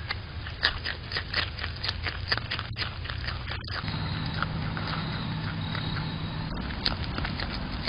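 Groundhog chewing and handling food, heard as a run of small clicks and scrapes over the steady low hum of a security camera's microphone; a low drone joins about four seconds in and stops about two seconds later.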